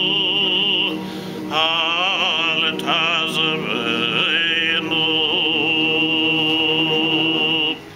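A male cantor (chazzan) chanting Selichos prayers solo in long held notes with wavering, ornamented runs, breaking off briefly about a second in and stopping just before the end.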